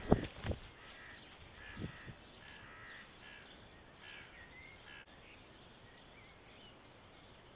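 A white stork's wings flapping on its nest, giving a few low thumps in the first half-second and one more about two seconds in. Other birds call briefly in the background with short chirping notes over the next few seconds.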